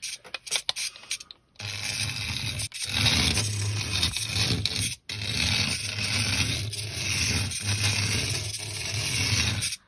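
Radio Shack ZipZap SE micro RC car's tiny electric motor and gears running as it drives across a rubber mat, a scratchy, hissy sound with a low hum that cuts out briefly twice. A few clicks come first, in the first second and a half.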